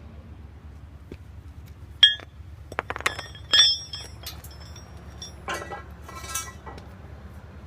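Steel-on-steel clinks and taps, each with a short metallic ring, on the Oscar 52 sawmill's band wheel and pillow block during alignment. One sharp clink comes about two seconds in, a cluster of clinks follows around three to three and a half seconds, and two brief scraping metal sounds come near five and a half and six and a half seconds.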